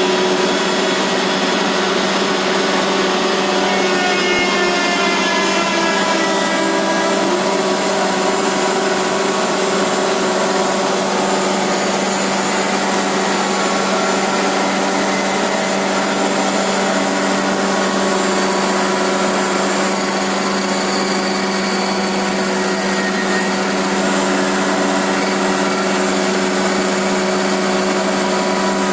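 Pade multi-spindle through-feed milling and sanding machine running steadily, a loud even machine noise with a strong hum and several steady whining tones. About four to seven seconds in, a whine rises in pitch.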